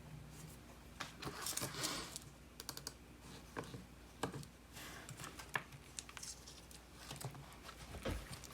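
Hands working with small objects at a desk: scattered light clicks and taps, with a quick run of clicks about two and a half seconds in and a dull bump near the end.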